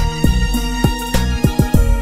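Instrumental music track with a steady beat: low kick drums that drop in pitch, sharp hi-hat-like hits and held chords.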